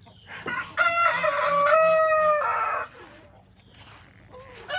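Rooster crowing once: a few short lead-in notes, then one long crow lasting about two seconds.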